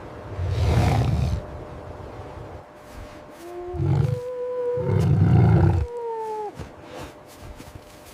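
A wolf howling: one long, steady call that steps up in pitch, holds, then falls away at the end. Deep rumbles sound under it and once before it.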